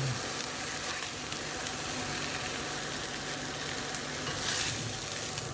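Pollock filets frying in butter and grapeseed oil in a skillet, sizzling steadily.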